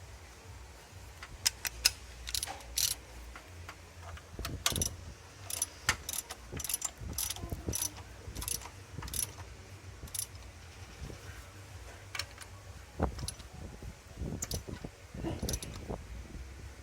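Hand ratchet wrench clicking in short irregular runs, with metal clinks, as the bolts of a newly fitted engine water pump are tightened.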